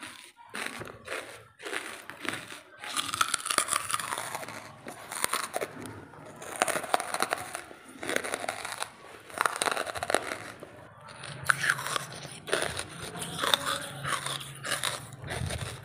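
Close-miked biting and chewing of dry charcoal lumps: a dense run of sharp, crackling crunches.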